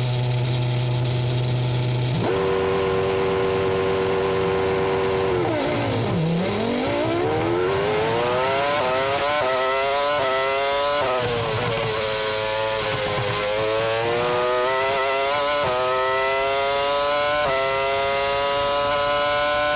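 Formula One car's V10 engine heard onboard at a race start. About two seconds in it jumps to high revs and holds there. Around six seconds in the revs dip sharply and recover as the car pulls away, then climb in repeated rising sweeps, each cut short by a quick upshift.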